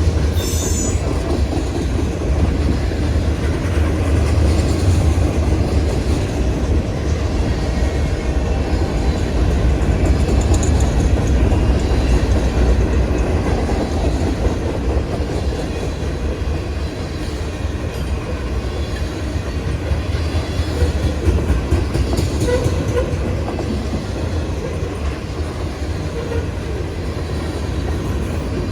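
Freight train rolling past: a steady low rumble of cars with wheels clacking over the rail joints and a few brief high wheel squeals.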